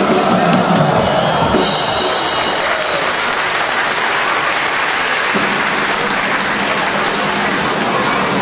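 Circus audience applauding as a high-wire walker reaches the platform, with band music underneath during the first couple of seconds.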